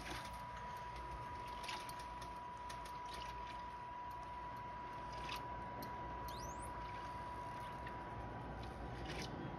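Harbour water lapping gently against a dock, with small splashes and clicks from gulls paddling, under a steady thin high tone. A brief rising whistle about six seconds in.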